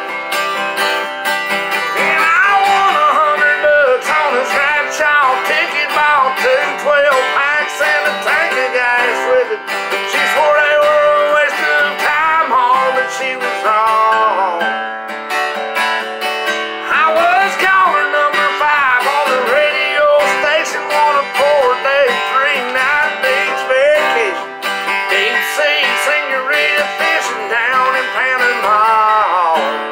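A man singing a country song to his own strummed acoustic guitar.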